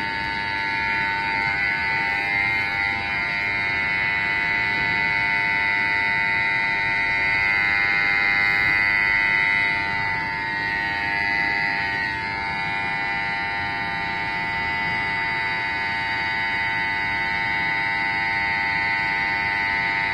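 Alarm buzzer sounding continuously as several steady tones, apparently set off by the emergency button at a railway level crossing being pressed. It dips slightly in level about halfway through.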